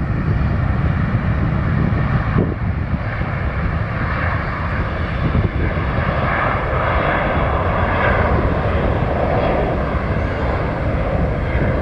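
Boeing 737 jet engines at takeoff power as the airliner accelerates down the runway: a loud, steady rumble whose higher whine grows stronger from about halfway through.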